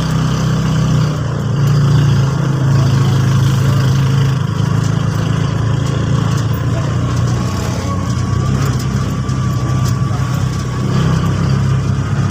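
Motor vehicle engine running with a steady low drone.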